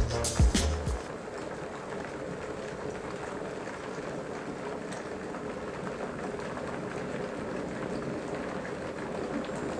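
Bosch electric kettle with 1.7 litres of water at the boil, a steady bubbling rush of water.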